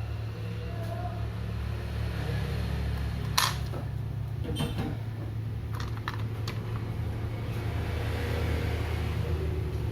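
Steady low hum of bench equipment, with a sharp tick about three and a half seconds in and a few lighter ticks a second or two later: small tools being handled while a resistor is soldered onto a laptop motherboard.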